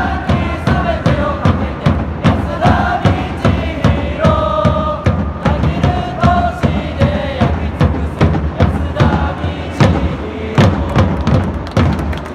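Football supporters singing a player chant in unison over a steady drum beat; the chant breaks off right at the end.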